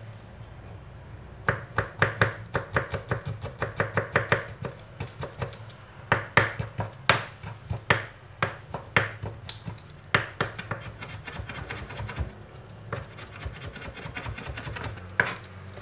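Kitchen knife mincing garlic on a cutting board. It starts about a second and a half in with a fast run of taps, about five a second, then slower separate chops, then a quieter quick run near the end.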